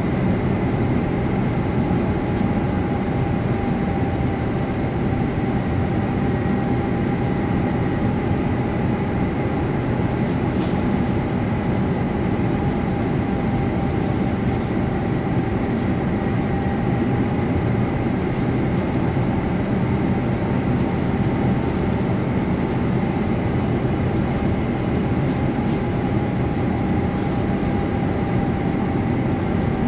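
Steady cabin noise inside a Boeing 787-9 airliner on its descent: the rush of air and the low hum of its Rolls-Royce Trent 1000 engines, with a faint steady whine that wavers slightly in pitch.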